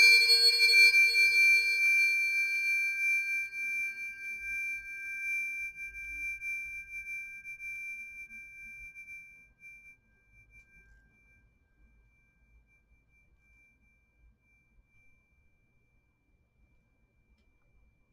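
A pair of Fibonacci-series tuning forks ringing after being struck, with two clear high pitches that fade steadily over about ten seconds. The higher tone lingers faintly well after the rest has died away.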